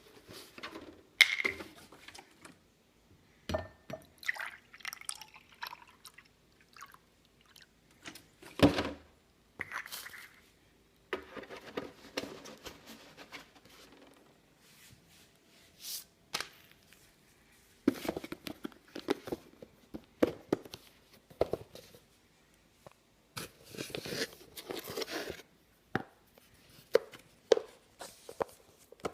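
Milk being poured into a glass for chocolate milk, amid the clatter of kitchen containers: several sharp knocks, the loudest about a second in, near the middle, and about halfway through.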